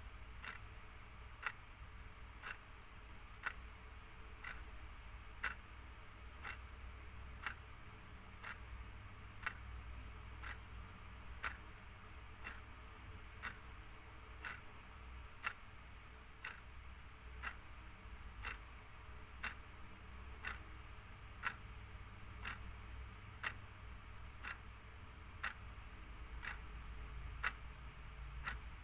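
Clock ticking steadily, one tick a second, with alternate ticks louder in a tick-tock pattern, over a faint low hum.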